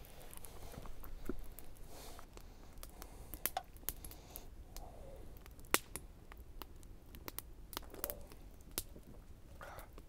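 Campfire burning wood, crackling with irregular sharp snaps and pops, the loudest pop a little past the middle.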